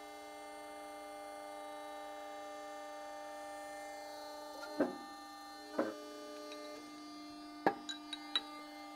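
Electric-hydraulic workshop press humming steadily with several fixed tones while it presses a pump shaft out of its ball bearings and distance sleeve. Two metallic knocks come about five and six seconds in, and a few sharp metal clicks follow near the end.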